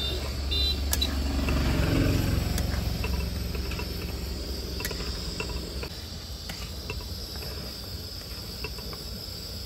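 Milky sev bhaji gravy boiling in a steel kadhai, bubbling steadily, with a few sharp taps of a steel spatula against the pan.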